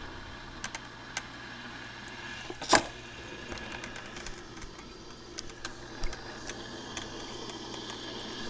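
Black & Decker drip coffee maker brewing: a steady hiss and hum with irregular sharp pops and clicks as the heated water sputters up the tube, with one loud pop a little under three seconds in.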